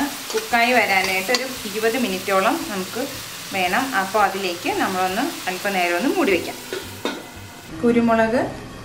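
A metal spatula stirring clam meat as it fries and sizzles in an aluminium wok. The spatula scrapes the pan in repeated strokes that carry a squeaky pitched tone.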